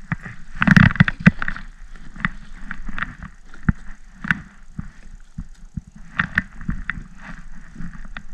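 Rustling, knocks and scattered clicks of a rubber landing net and fishing gear being handled aboard a kayak, loudest in a burst about a second in.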